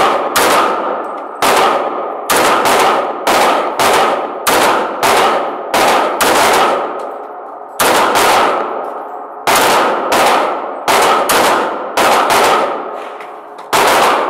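Repeated .45 ACP pistol shots from a Llama semi-automatic handgun: close to twenty sharp shots at roughly one to two a second, some in quick pairs, with short pauses. Each shot rings out with a long echo off the hard walls of an indoor range.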